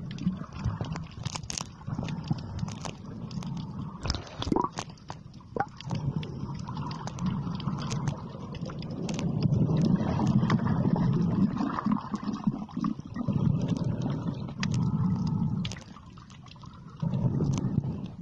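Muffled underwater water noise picked up by the camera: a low, uneven rumble that swells and fades in long surges, with scattered clicks and gurgles. It is loudest through the middle and dips briefly near the end.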